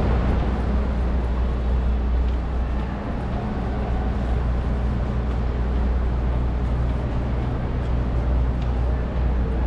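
Steady city street noise: a continuous low rumble of traffic and idling cars under a general urban hum.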